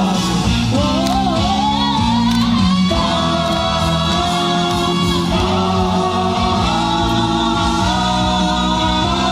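Loud music with a singing voice: a melody that slides up and down over steady held bass notes.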